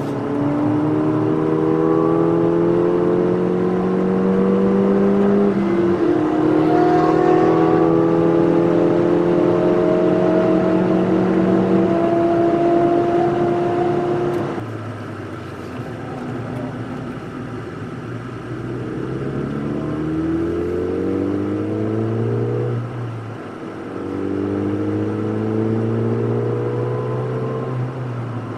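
A 221 PS Ford Fiesta ST's 1.6-litre turbocharged four-cylinder, heard from inside the cabin, is pulling hard with the revs climbing and an upshift about six seconds in. Its note drops back about halfway through, then the revs climb again through another upshift near the end.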